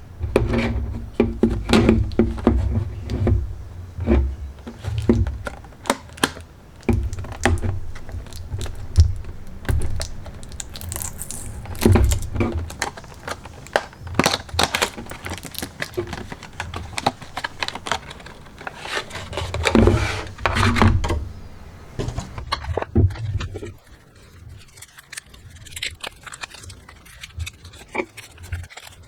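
Hands opening and handling a JBL Go 3 speaker's retail packaging: irregular rustling, clicks and thunks of box and wrapping, in busy bursts that thin out near the end.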